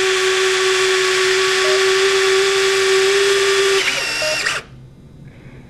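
Electric retractable landing gear of a Banana Hobby YF-23 RC jet running: a steady high whine with a hiss, which wavers briefly and then cuts off suddenly about four and a half seconds in.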